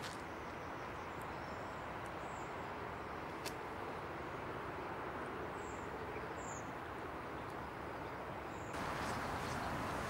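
Outdoor waterside ambience: a steady hiss with a few faint, short, high bird chirps and a single sharp click about three and a half seconds in. Near the end the background hiss abruptly grows louder.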